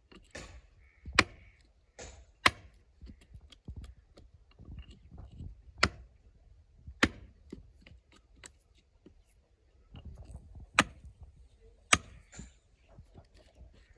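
Sharp knocks or strikes on something hard, mostly in pairs about a second apart, with fainter knocking and rustling between.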